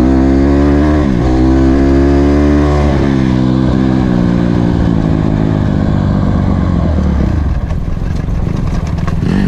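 Honda CRF150R dirt bike's single-cylinder four-stroke engine running hard, its note dropping sharply and climbing again twice as it shifts up. After a few seconds the revs fall away steadily as the throttle is closed, and it slows to a lower, rougher running near the end.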